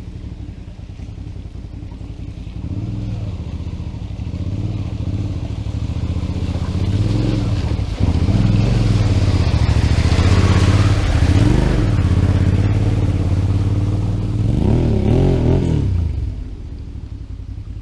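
Adventure motorcycle engine running and getting louder, with the revs rising and falling several times, loudest in the middle. A last blip of throttle comes near the end before the sound drops away.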